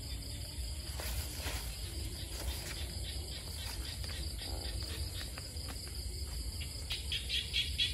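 Crickets and other night insects calling in a steady high chorus, with a louder, rapidly pulsing chirp joining near the end.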